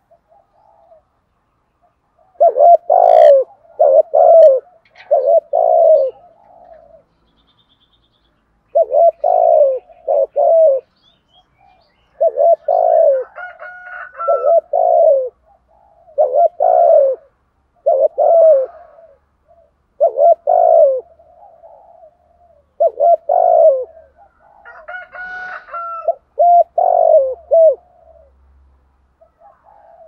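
Spotted dove cooing close up: repeated phrases of two or three low, throaty coos with short pauses between, beginning a couple of seconds in. Fainter, higher calls from another bird come through a few times.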